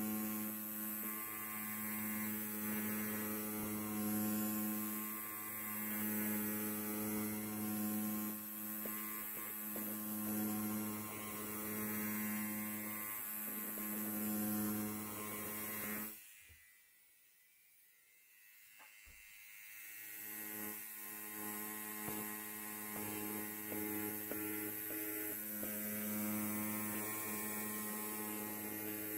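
Electric hair clipper buzzing steadily with a low, even hum. About sixteen seconds in it cuts out abruptly, and after a click some three seconds later the buzz builds back up.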